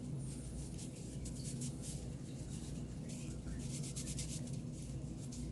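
Dry cloth rubbing over pistol parts as they are wiped dry, a run of short, uneven scratchy strokes.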